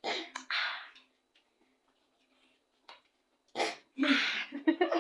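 A small child making breathy puffing and spluttering sounds with her mouth, a pair of short bursts at the start and more from about three and a half seconds in, with a quiet gap between.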